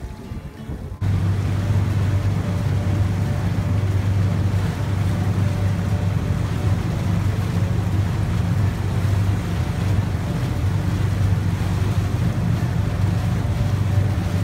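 Motorboat engine running steadily at cruising speed with a deep hum, over the rush of churning water in the wake and wind on the microphone. It starts abruptly about a second in.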